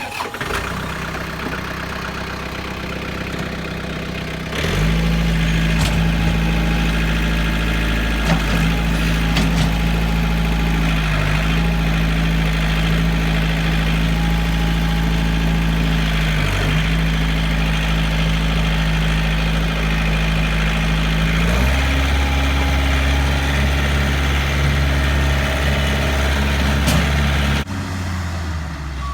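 Bulldozer's diesel engine running steadily at close range. It gets louder and deeper about five seconds in, shifts pitch about twenty-two seconds in, and eases off again near the end.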